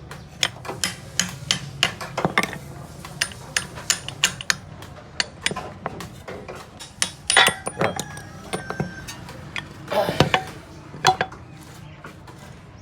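Hand tools and metal car parts clinking and knocking irregularly, a few strikes ringing briefly, over a low steady hum.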